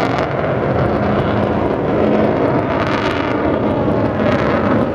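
Avro Vulcan XH558's four Rolls-Royce Olympus turbojets, a loud steady jet roar as the delta-wing bomber flies past.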